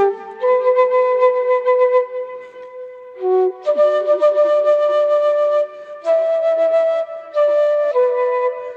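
Flute music: a slow melody of long held notes, with short pauses between phrases about three, six and seven and a half seconds in.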